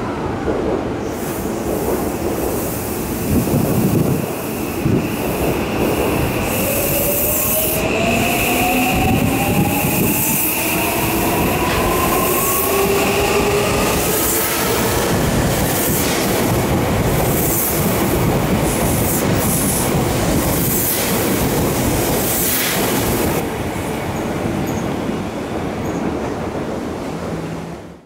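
Odakyu 5000 series electric train pulling away from a platform: its traction motors give a whine that rises in pitch as it gathers speed, over a running rumble. Its wheels clack over rail joints about every second and a half as the cars pass close by.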